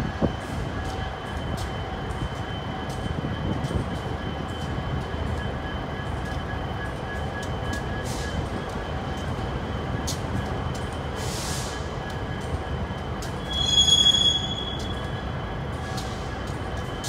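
Union Pacific intermodal freight train rolling slowly past: a steady rumble of the cars on the rails with scattered clicks from the wheels, and a thin steady wheel squeal. About fourteen seconds in, a louder, higher flange squeal rises for about a second.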